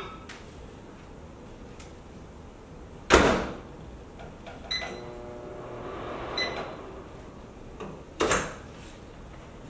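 Whirlpool over-the-range microwave oven in use: the door shuts with a thump about three seconds in, then two short keypad beeps and a brief low hum, and another thump near the end.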